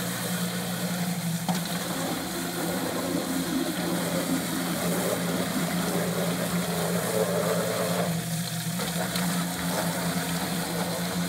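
Electric drum-style chicken plucker running with a steady motor hum, its spinning drum churning with water from a hose sprayed into it.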